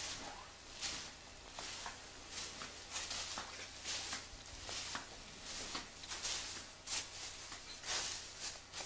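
Footsteps walking at an even pace, a dozen or so soft scuffing steps roughly one every 0.7 seconds.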